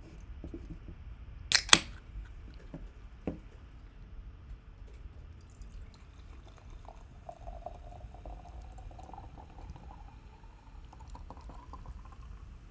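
A sharp double click about a second and a half in, then liquid poured into a glass for several seconds, its pitch rising as the glass fills.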